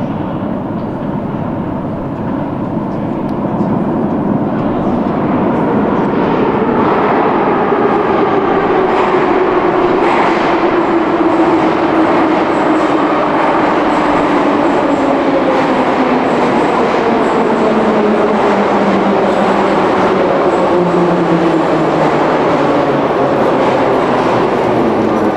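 Moscow Metro train running on the rails and slowing down. The rumble and rattle of the wheels carry on throughout, and from about a third of the way in, the electric motors' whine falls steadily in pitch as the train brakes.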